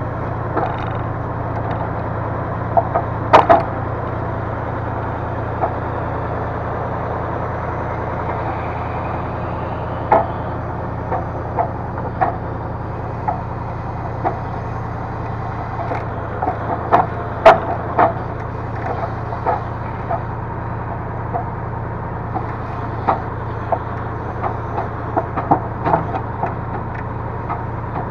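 Diesel engine of a timber crane machine running steadily, with scattered sharp knocks and clunks from the crane handling logs, the loudest about three seconds in and again about two-thirds of the way through.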